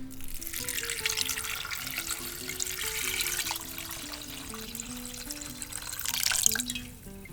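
Water running in a steady rushing stream that starts suddenly and cuts off shortly before the end, over light acoustic guitar background music.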